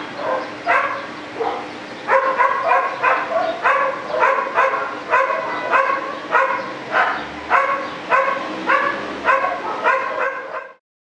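A dog barking over and over in a quick, even rhythm, about two to three sharp barks a second, stopping abruptly near the end.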